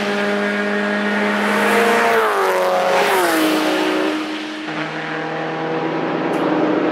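Toyota GT86's flat-four boxer engine pulling hard as the car passes on the circuit. Its note slides down in pitch a little over two seconds in as it goes by. Later another car's engine note approaches, steady and slowly getting louder.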